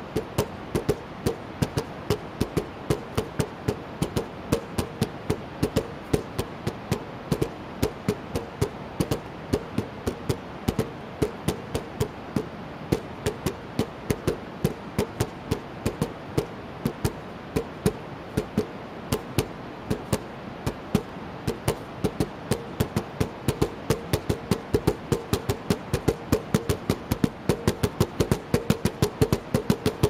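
Nunchaku drumming: a pair of nunchaku beating a fast, steady rhythm of sharp knocks on plastic buckets used as drums. The strokes get quicker and louder over the last few seconds.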